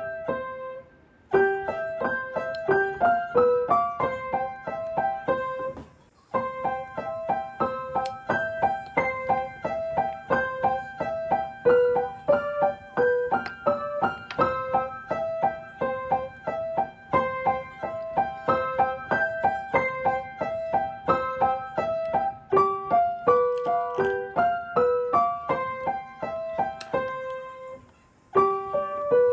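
Background piano music: a light melody of quick, evenly paced notes, pausing briefly twice.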